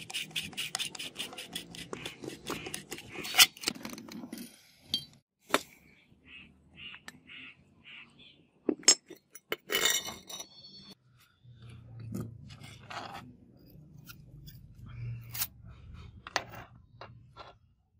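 Rusty steel airgun parts clinking, knocking and scraping as they are handled and pulled apart: a quick flurry of clicks in the first few seconds, then scattered knocks and short rubbing sounds.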